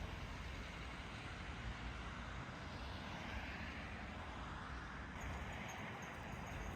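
Steady city traffic noise, a low rumble with a vehicle swelling past around the middle.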